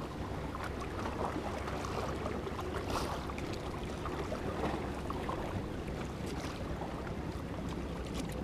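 Steady waterside ambience: moving water and wind noise, with a low steady hum underneath and a few faint clicks.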